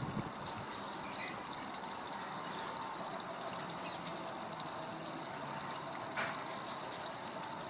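Steady rushing noise like running water, with one short sharp sound about six seconds in.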